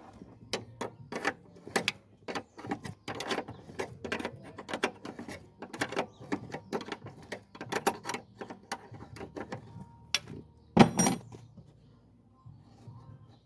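Wrench turning out a 13 mm nut on a car's gearbox mount: a rapid, irregular run of small metallic clicks for about ten seconds, with one louder metal clack about eleven seconds in.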